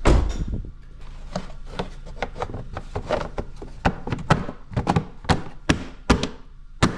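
A loud thump at the start, then a run of sharp, irregular taps and knocks as hands press and pat the Ford Focus ST's plastic engine-bay covers back into place.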